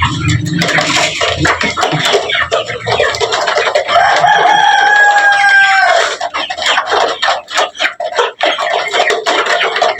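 A desi rooster crows once, a single long call of about two seconds in the middle, among clucking chickens and many short sharp clicks and scratching noises.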